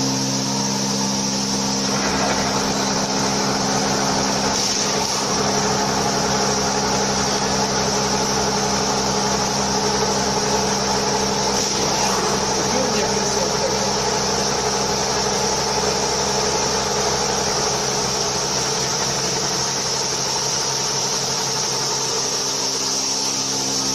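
Cormak UWF 110 Servo universal milling machine running steadily, a continuous hum and whine, with a low rumble joining about two seconds in.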